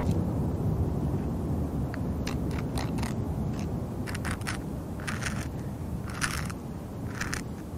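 Low rumble of a jet airliner's engines slowly fading away. From about two seconds in, about a dozen short crunching or rasping noises sound over it.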